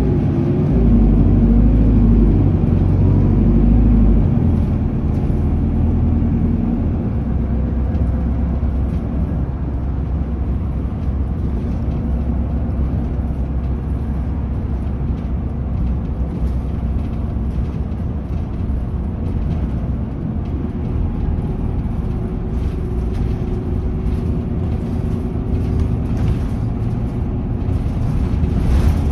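Interior ride sound of an Isuzu Erga city bus with its four-cylinder diesel engine. The engine works hard with rising and falling pitch for the first four seconds as the bus picks up speed, then settles into a steady run under tyre and road noise.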